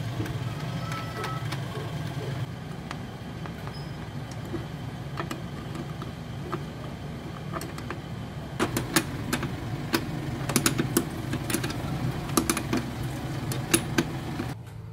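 Irregular metallic clicks and clinks from tightening a car's clutch master cylinder fittings and mounting nuts by hand, coming thickly in the second half, over a steady low hum.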